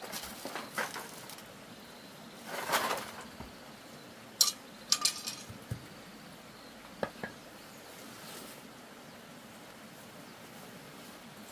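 A few sharp, light clinks and knocks of small hard objects being handled, with a short rustle about two and a half seconds in.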